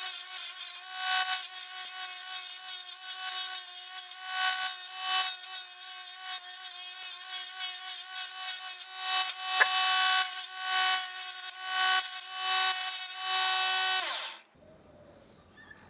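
DC 24V mini lathe motor running with a steady whine while a small chisel scrapes and cuts grooves into a spinning wooden blank, in uneven scraping strokes. The motor cuts off about fourteen seconds in.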